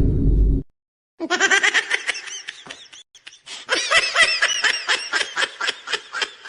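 High-pitched laughter sound effect, a long run of quick cackling pulses starting about a second in. It follows the abrupt end of a loud, low booming effect in the first half second.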